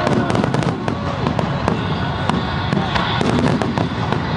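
Aerial fireworks shells bursting in a display, many sharp bangs and crackles in quick succession over a continuous rumble.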